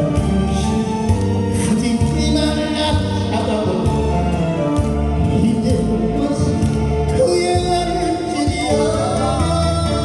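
Korean trot song sung live by a male singer into a microphone over a recorded backing track with a steady bass beat.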